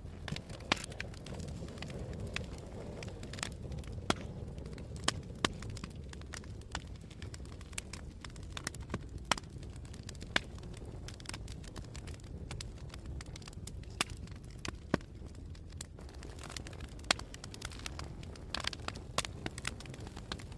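Wood fire burning in a fireplace: irregular sharp crackles and pops, some louder than others, over a low steady rumble.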